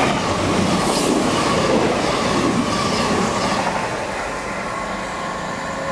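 CrossCountry Class 221 Voyager diesel multiple unit running past close to the platform, with underfloor diesel engines and wheels on the rails. The sound fades over the last couple of seconds.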